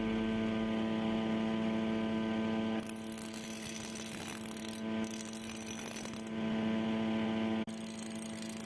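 Background music of sustained, held tones over a steady low drone, the chord changing every couple of seconds.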